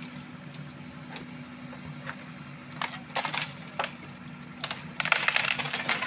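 JCB 3DX backhoe loader's engine running steadily while its bucket crushes a bamboo-and-mud wall. The bamboo cracks and snaps a few times from about three seconds in, then splinters in a dense loud run near the end.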